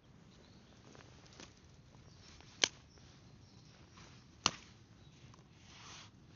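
Wood campfire popping: two sharp cracks about two seconds apart, with a few fainter ticks, over a faint steady hiss.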